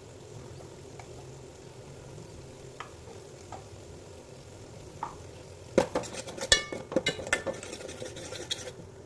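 A metal spoon stirring in a cooking pot: a few light taps at first, then a quick run of clinks and scrapes against the pot in the second half, over a steady low background noise.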